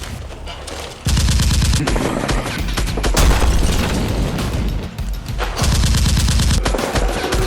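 Rapid bursts of gunfire, most likely added gun sound effects, over action music. The shooting starts loudly about a second in and keeps going, with a short break near five seconds.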